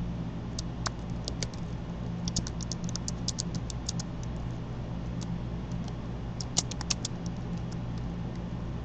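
Computer keyboard keys clicking in irregular runs of typing, thickest a couple of seconds in and again near the end, over a steady low electrical hum.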